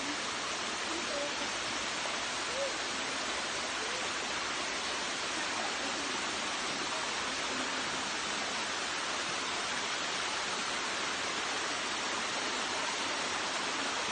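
Steady rush of water from a small waterfall cascading over rocks into a shallow pool.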